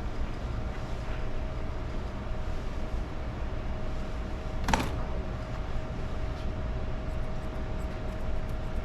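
Steady low electric motor hum with a thin steady tone over it, and one sharp click about halfway through.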